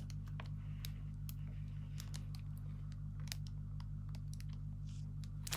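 Light, irregular clicks and crackles of the plastic film on a diamond painting canvas as it is handled, over a steady low hum.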